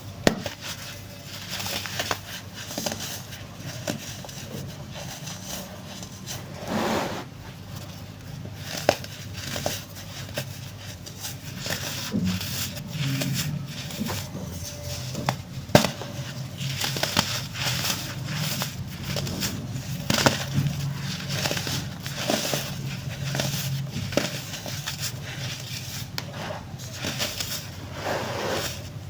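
Hardened baking soda chunks being crushed and crumbled by hand, a dense crunching crackle with a few sharper snaps.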